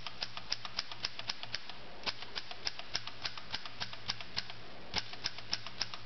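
Corona 3 folding typewriter typing: its typebars strike the platen one key at a time, about four clicks a second, with a short pause about two seconds in.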